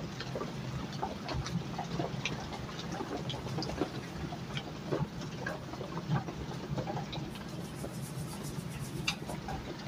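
A watercolour brush stroking and dabbing on paper, giving small scattered ticks and scratches over a steady low hum. Near the end the brush scrubs in a metal palette tin, with a sharper tick about nine seconds in.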